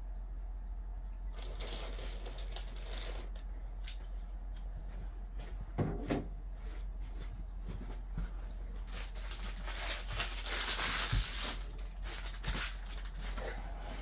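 Trading card packs being opened and handled: foil wrappers crinkling and cards rustling, in bursts that are densest a little past the middle, with a couple of light knocks about six and eleven seconds in.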